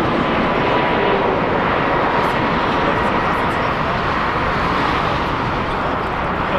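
Boeing 767-300 freighter's twin jet engines on final approach, a steady rushing noise with a faint high whine in the first second or so.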